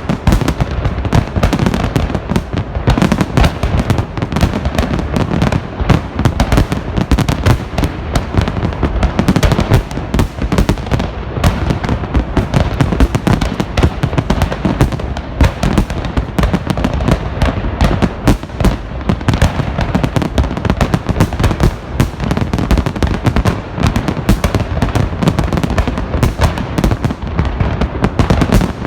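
Festive fireworks salute: a dense, unbroken stream of loud bangs and crackling as many shells burst in quick succession.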